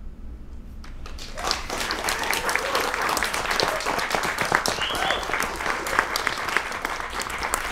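Audience applauding, starting up about a second in and holding steady, with a brief shout from the audience about five seconds in.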